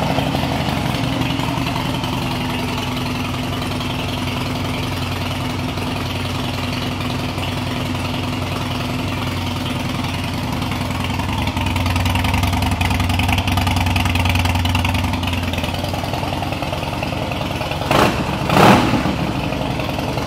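Harley-Davidson Twin Cam 96 V-twin of a 2009 Softail Heritage Classic with Python pipes, idling steadily. It gets louder for a few seconds in the middle, and there are two brief louder bursts near the end.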